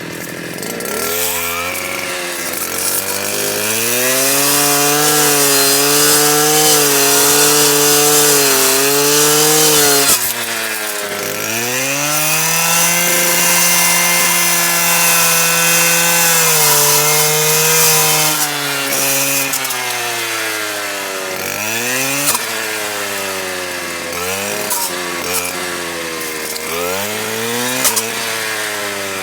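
STIHL KA 120R's small engine driving a chainsaw-toothed circular saw blade through wood: it revs up about a second in and is held at high speed for several seconds, drops back around ten seconds in, revs up and holds again, then drops off and gives a series of shorter revs with a few sharp clicks near the end.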